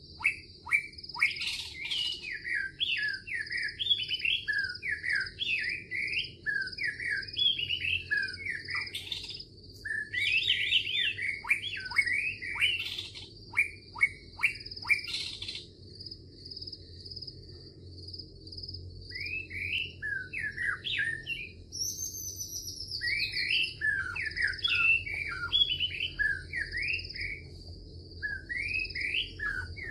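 Many songbirds chirping and singing in quick, varied phrases, with a constant high-pitched whine running underneath. The calls thin out for a few seconds around the middle.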